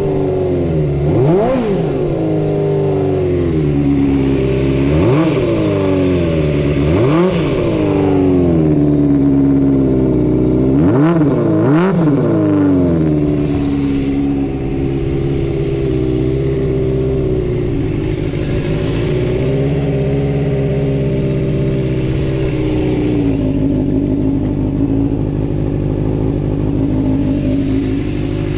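Suzuki Bandit 250V inline-four motorcycle engine through a Pretty Racing short exhaust. It is blipped in about six quick revs that rise and fall back during the first half, then settles to a steady idle. It revs freely, with no abnormal noises.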